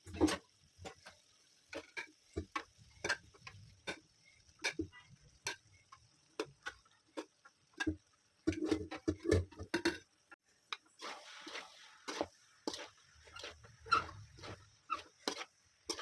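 A cooking utensil knocking and scraping against a pan: irregular sharp knocks, one or two a second, with a brief stretch of scraping about two-thirds of the way through.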